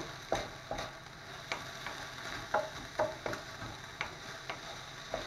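Diced calf heart sizzling in a frying pan, stirred with a wooden spatula that scrapes and knocks against the pan a dozen or so times. The meat's own juices have cooked off, so it is now frying dry.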